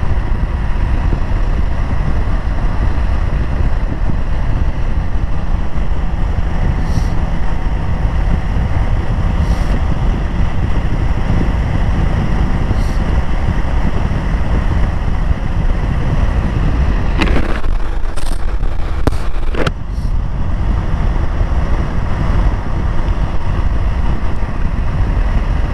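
Motorcycle engine and exhaust running at a steady, held throttle while riding, mixed with wind rushing over the microphone. An even exhaust note like this is the sign of smooth throttle control. A few brief sharp noises come about two-thirds of the way through.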